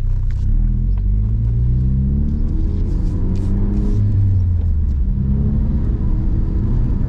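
Ford Focus RS's 2.3-litre turbocharged four-cylinder engine pulling under acceleration: its pitch climbs for about four seconds, drops sharply at a gear change, then climbs again.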